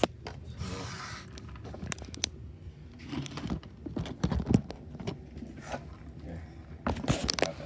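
Handling noises from a fast-food meal: crinkling paper packaging and light clicks and knocks, in irregular short bursts, with a denser run of clicks near the end.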